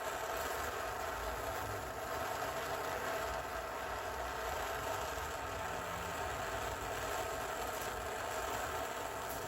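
A steady, unbroken whir with a rushing hiss, like a machine running, that holds level throughout.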